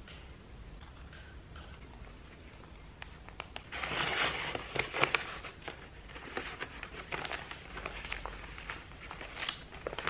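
Brown kraft paper mailer envelope rustling and crinkling as an item is pushed into it by hand, starting about three and a half seconds in and loudest soon after, then continuing in smaller rustles and crackles.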